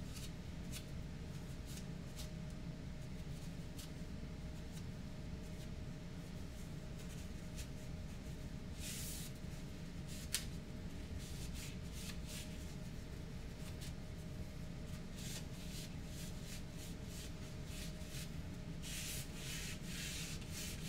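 Paper napkin rubbing over a glued, laser-cut wooden box, wiping off the glue squeeze-out in short scratchy strokes, with light handling knocks and one sharp click about halfway through. A steady low hum runs underneath.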